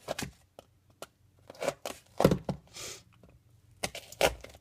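Box cutting knife stabbing and slicing slits through duct-taped cardboard: a handful of irregular sharp knocks and short scrapes, the loudest about two seconds in and again near the end.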